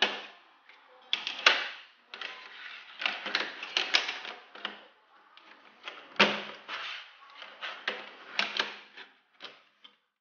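Plastic toy train track pieces clicking and clattering as they are handled and snapped together on a tabletop: a run of irregular sharp clicks and rattles that stops just before the end.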